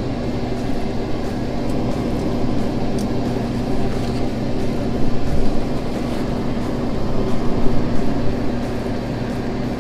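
Inline duct exhaust fan running steadily, a constant hum with air rushing through flexible aluminium foil ducting.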